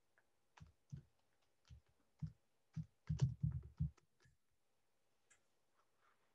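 Computer keyboard being typed on: separate keystrokes at an uneven pace, with a quick run of several about three seconds in and a couple of stray taps after.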